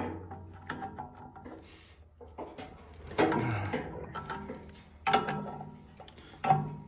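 A wrench clicking and clanking on the hub of a furnace's squirrel-cage blower wheel inside its sheet-metal housing as the wheel's set screw is worked, in a few separate bursts.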